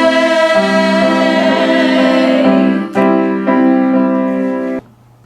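Piano playing sustained chords at the end of a sung, piano-accompanied song. The music cuts off suddenly near the end, leaving a low hum.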